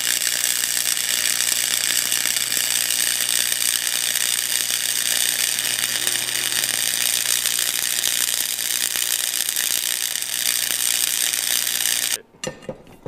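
Electric arc welding a bead on a thin steel T-joint: a steady, dense crackle over a low hum that cuts off abruptly about twelve seconds in. A few sharp knocks follow at the end.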